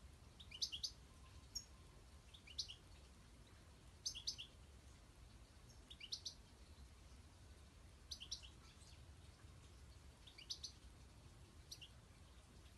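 European goldfinch calling: short bursts of two to four quick, high chirping notes, repeated about every two seconds, seven times.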